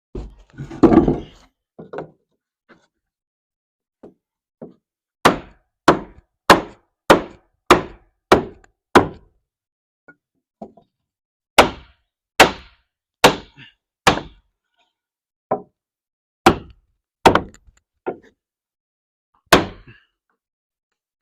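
Hammer blows on wood, tapping a tight-fitting window frame piece into the log cabin's rough opening. A short rustling thud comes first, then a run of about seven sharp strikes a little over half a second apart, four more after a pause, and a few scattered single knocks.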